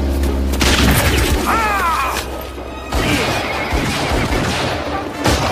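Battle sound effects: a loud crash about a second in, then scattered sharp gunshots from about three seconds in.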